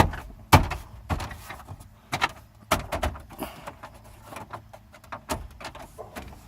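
Plastic dash trim in a pickup's cab being handled and pressed into place: a string of sharp plastic clicks and knocks, the loudest right at the start and about half a second in.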